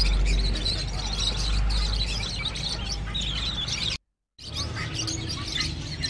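A chorus of many small caged birds chirping and twittering, dense and overlapping. It breaks off for a moment about four seconds in and then resumes.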